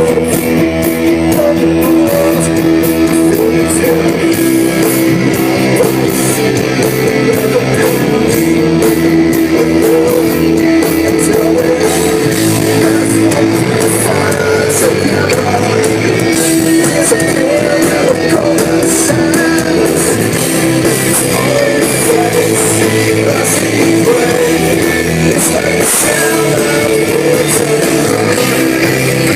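Rock music with guitar playing continuously at a steady, loud level, the bass notes shifting every few seconds.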